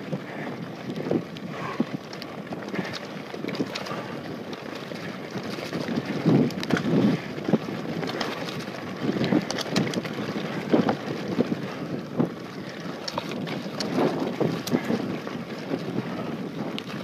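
Wind buffeting the microphone over the rumble of mountain-bike tyres rolling fast down a dirt and gravel trail, with frequent clicks and knocks from the bike rattling over bumps and stones.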